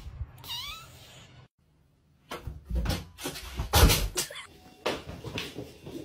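A cat meows once, briefly, with a falling pitch about half a second in. After a short silent gap comes a series of knocks and thumps, loudest around four seconds in.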